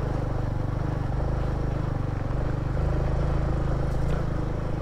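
Motorcycle engine running steadily at a low, even speed while riding, its regular firing pulses heard throughout.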